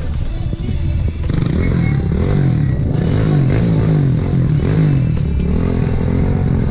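Off-road race vehicle's engine running hard as it passes on a dirt course, growing louder about a second in, its pitch rising and falling again and again as the throttle is worked.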